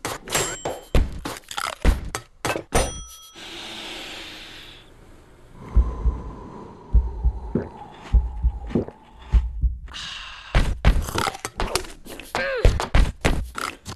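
A rapid series of sharp hits and thuds is cut together as a rhythmic sound-effect montage. About six seconds in it gives way to a slow, low heartbeat heard through a stethoscope, then to a fast run of short scrubbing strokes of a toothbrush near the end.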